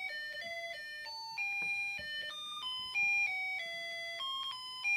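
Snap Circuits music IC playing its built-in electronic melody through the kit's small speaker: a string of thin, beeping notes, several a second, after the circuit is switched on.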